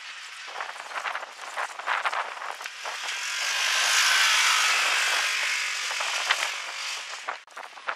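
Off-road race side-by-side (UTV) driving past close by on a dirt course, its engine and tyre noise swelling to a peak about four seconds in and then fading away.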